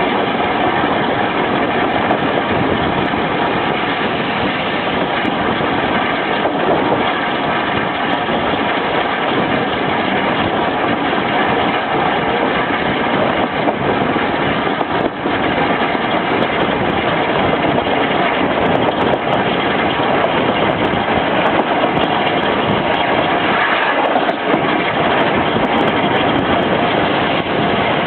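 Steam-hauled passenger train on the move, a steady, even rumble of running on the rails with no clear exhaust beat.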